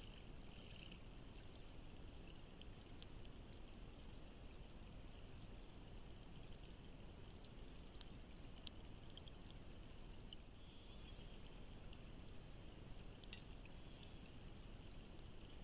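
Faint steady rush of creek water, with scattered small drips and clicks throughout.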